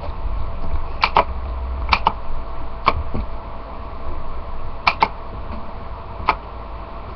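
About eight sharp, short clicks, three of them in quick pairs, over a steady low hum.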